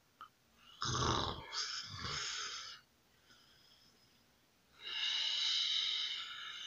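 A person snoring twice. The first snore is rough and low, about a second in, and lasts about two seconds. The second, near five seconds in, is a longer, airy breath with little low sound in it.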